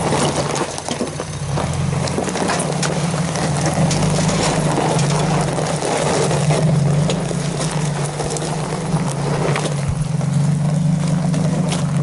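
Nissan Frontier pickup's engine running steadily at crawling speed while its tyres crunch over loose gravel and rock, with scattered sharp clicks of stones.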